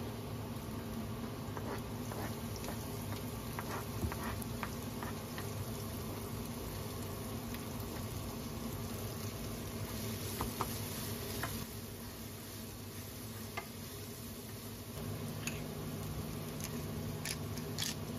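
Home cooking sounds: scattered light clicks and taps of utensils and food over a steady low hum, with some sizzling.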